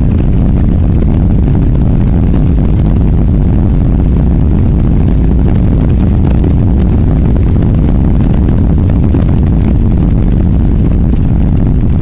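Wind buffeting the microphone of a camera mounted on the rear wing of a moving car: a loud, steady low rumble.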